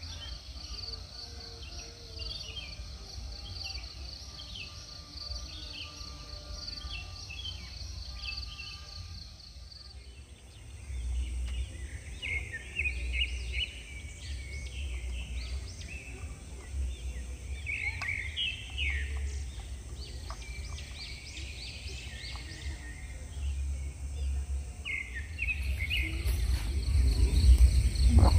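Birds chirping and calling in the early morning, with many short, high chirps, over a low rumble of wind on the microphone. For the first ten seconds a steady pulsing insect trill runs beneath the birds, then stops. A louder rushing noise builds near the end.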